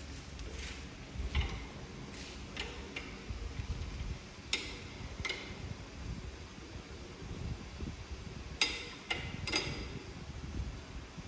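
Scattered light metallic clicks and taps of door-lock hardware and hand tools being handled while a lock is fitted, with a few close together near the end.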